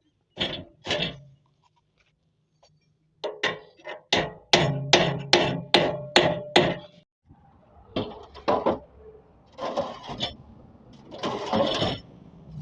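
Hammer blows during a machine repair: two strikes about half a second apart, then a quick run of about nine strikes, roughly two to three a second. Longer, rougher sounds follow near the end.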